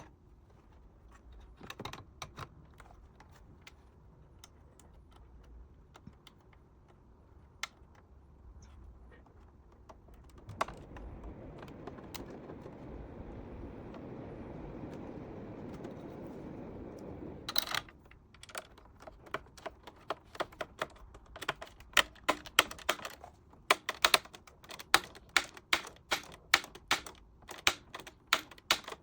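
Scattered light clicks and taps, then a steady rushing noise for several seconds in the middle, then a run of quick, sharp clicks at about three a second, like typing or buttons being pressed.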